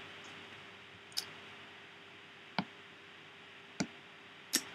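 Four single computer mouse clicks about a second apart, over a faint steady hum.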